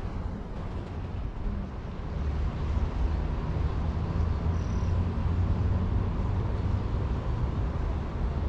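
Wind buffeting the microphone: a steady low rumble that grows louder about two seconds in.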